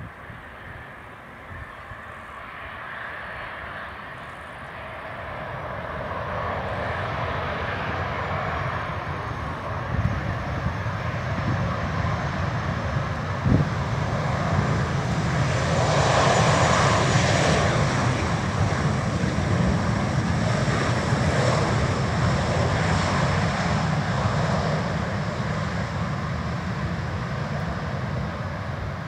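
Boeing 737 twin CFM56 turbofans during landing and rollout: a steady jet rumble and hiss that builds over the first several seconds, is loudest a little past halfway, and stays loud to the end.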